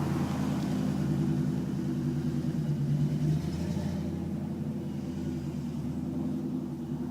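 1987 Mustang GT's 5.0-litre V8 running on a cold engine just after a rev, its steady low note slowly getting quieter.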